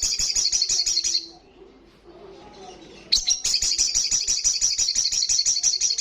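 Sunbird (sogon) singing a fast, high trilling chatter of rapidly repeated notes, in two long bursts: the first stops about a second in, the second starts about three seconds in.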